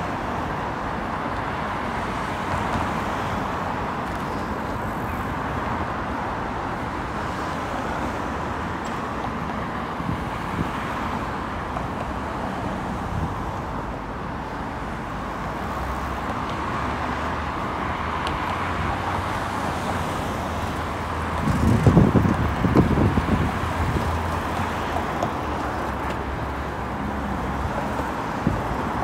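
City street ambience: a steady wash of traffic noise with a low engine-like hum, and a louder low rumble lasting about two seconds roughly three-quarters of the way through.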